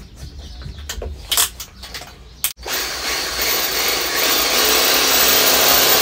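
A few clicks from a cordless drill's chuck as a bit is fitted. About two and a half seconds in, the drill starts running steadily, boring a larger hole through a rubber grommet after its pilot hole.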